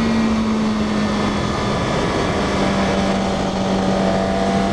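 Suzuki GSX-R 600 inline-four engine running at steady cruising revs under way, with wind rush; the engine note settles slightly lower about two seconds in and then holds steady.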